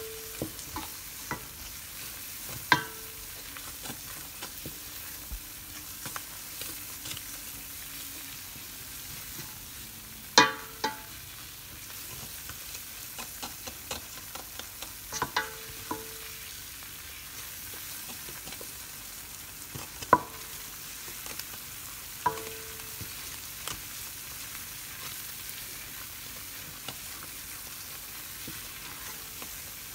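Butter-and-flour roux for a béchamel sauce sizzling gently in a stainless steel pot as it is stirred with a wooden spoon. Several sharp knocks of the spoon against the pot come through, some ringing briefly.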